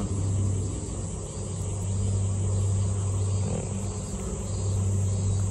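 A steady low droning hum that swells and fades about every two seconds, over an even background hiss.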